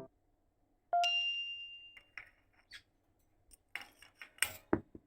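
A quick rising tone and then a bright chime that rings for about a second, followed by scattered soft clicks and two short louder rustling bursts near the end.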